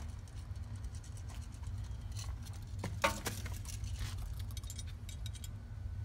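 Hands handling parts: small clicks and rattles with a key ring jangling, and one sharper click about three seconds in, over a steady low hum.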